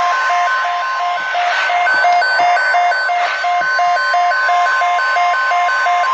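Emergency Alert System alert tone: a steady single-pitch alarm tone with rapid beeping in two alternating pitches, about three beeps a second, over it, heard through radio static.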